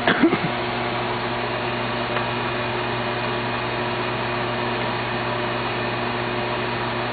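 Steady mechanical hum, with a brief short sound right at the start.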